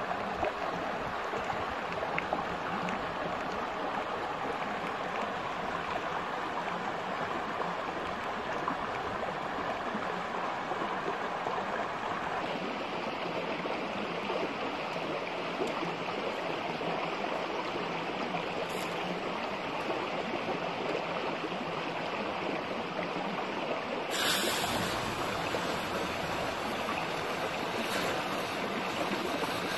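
Shallow stream running over rocks: a steady rush of water. About 24 seconds in a sudden louder, hissing rush joins it and holds on to the end.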